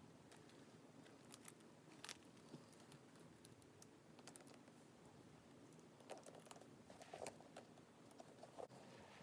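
Faint handling sounds: scattered small clicks and light rustling as a leather crossbody strap's metal clip hooks are handled and clipped onto a fabric handbag, with a cluster of clicks in the last few seconds.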